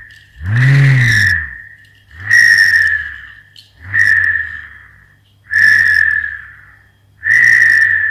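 Homemade bottle-cap whirligig whirring as it spins up and winds down on its twisted string with each pull. About five pulses, roughly one every second and a half, each a whistling whir over a low hum that rises and then falls in pitch.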